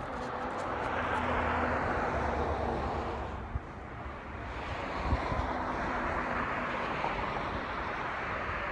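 Cars passing on a nearby road: tyre and engine noise swells, fades briefly in the middle, and swells again as a second vehicle goes by. A couple of faint knocks come in the middle.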